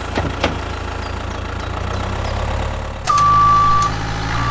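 Tractor engine idling with a steady low rumble, with two light clicks near the start. About three seconds in a reversing beeper starts, one long high beep and then a second.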